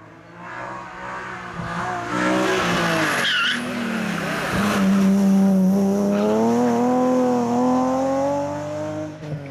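BMW M3 rally car driven hard through a tarmac hairpin: the engine's revs fall into the corner with a brief tyre squeal about three seconds in, then the engine is held at high revs and climbs slowly as the car pulls away.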